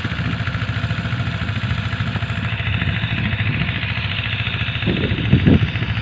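Small engine running steadily with a rapid, even chugging, with a few louder surges near the end.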